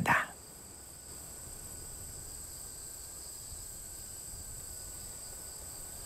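Steady, high-pitched chorus of insects, running on without a break at an even level.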